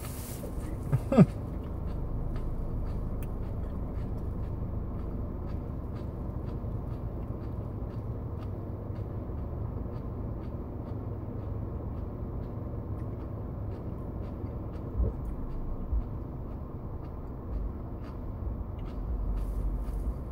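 Steady low hum inside a car's cabin, with faint even ticks about twice a second. About a second in, a short, sharp sound falls quickly in pitch, and a couple of low thumps come around fifteen seconds in.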